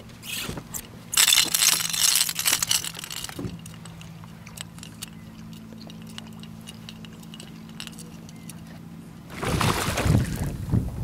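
Speckled trout striking a rattling topwater plug with a loud splash near the end. Before it there is a stretch of faint, scattered clicking from the lure's rattle as it is worked across the surface, and about a second in a loud, noisy burst lasting a couple of seconds.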